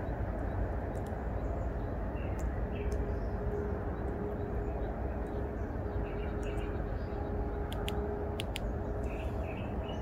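Small wild songbirds calling with scattered short chirps and thin high ticks, over a steady low rumble.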